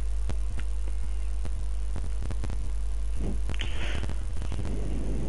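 Steady low electrical hum on the recording, with faint scattered clicks and a brief breathy noise a little over three seconds in.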